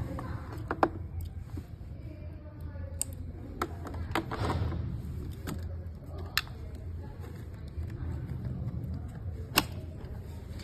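Scattered sharp clicks and taps of small tools on a small device during a charging-port and battery repair, about seven in all, the loudest near the end, over a low steady hum.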